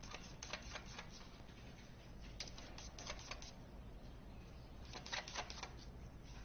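Faint clicking of computer keyboard keys pressed by a cat's paws, in a few short clusters of quick clicks.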